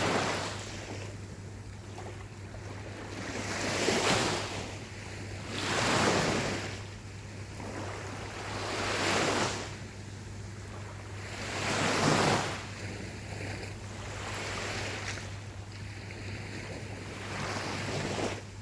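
Gentle ocean waves breaking and washing up the shore, the surf swelling and falling back every two to three seconds.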